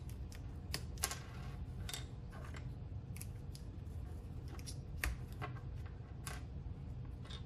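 Small clear plastic LED lenses being pushed out of white plastic bezels by hand: about a dozen sharp, irregular plastic clicks and snaps, with parts set down on a wooden bench.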